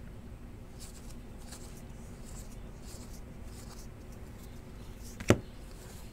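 Thin cardboard trading cards sliding against one another as they are flipped through a stack held in the hand, several soft scratchy rustles, with one sharp click about five seconds in.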